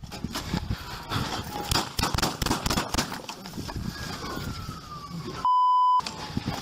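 Sharp knocks and clatter for the first few seconds, then a siren wailing faintly and falling in pitch. Near the end comes a loud half-second censor bleep, a steady beep tone that blanks out all other sound.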